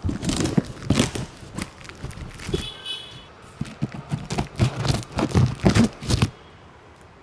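Packing tape on a cardboard box being cut and worked loose with a small blade, picked up close by a microphone resting on the box: irregular scraping, crinkling and tearing with knocks on the cardboard, loudest a little after the middle. A brief high squeak about three seconds in.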